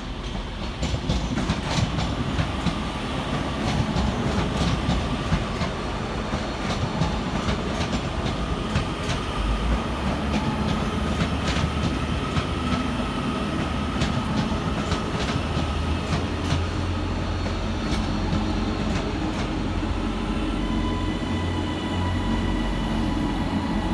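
Two coupled Class 331 electric multiple units arriving at a platform: a steady rolling rumble with wheels clicking over rail joints, and a faint traction whine slowly falling in pitch as the train brakes. In the last third a deeper steady drone builds underneath.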